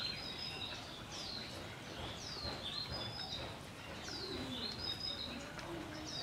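A songbird singing the same short phrase over and over, a falling whistle followed by a few short high notes, repeating about every second or so.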